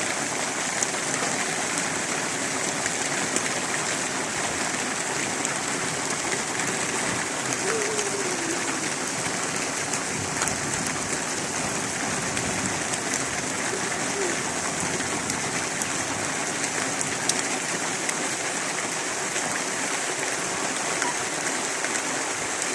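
Heavy rain falling steadily, a dense even hiss with scattered sharper drop ticks on hard surfaces.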